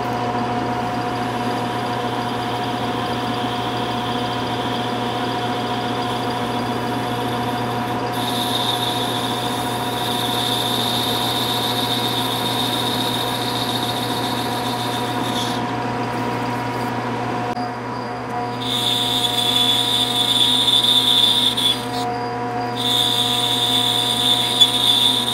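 Hendey metal lathe running with a steady hum while a small boring bar cuts inside the hole of an aluminium cap blank. A high cutting whine comes in about eight seconds in, stops briefly twice, and gets louder in the last several seconds.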